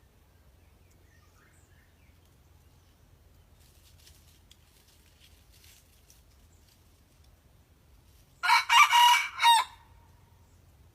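A junglefowl rooster crows once near the end, a short crow lasting about a second and ending on a clipped high note. It is a young bird still learning to crow.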